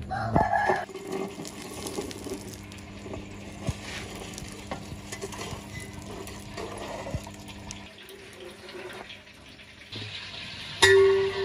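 A metal shovel scraping up hot wood embers and tipping them onto the lid of a large aluminium cooking pot for dum cooking, with light scraping and clinking of coals. A sudden louder sound comes near the end.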